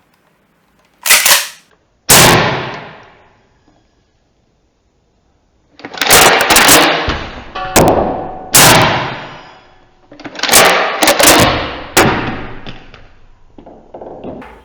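Loud gunshot-like bangs, each with a long echoing tail. Two single shots come in the first couple of seconds, then after a pause two rapid volleys of several shots each, and a softer last one near the end.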